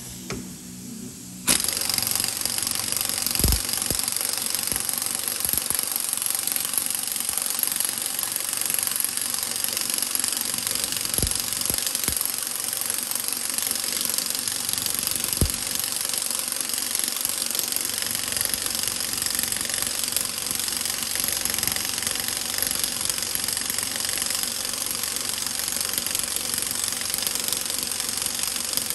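Pneumatic impact wrench starting about a second and a half in and then hammering steadily without a break, turning the threaded rod of a homemade puller to draw a pressed-in pin out of a piston and connecting rod.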